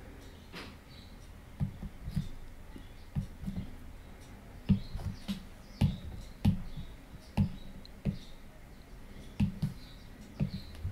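Irregular light taps and clicks of a stylus on a tablet's glass screen, one or two a second, as strokes are drawn and menu buttons are pressed.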